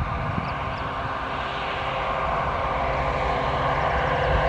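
Diesel locomotive hauling a container freight train: a steady engine drone that grows gradually louder as the train approaches.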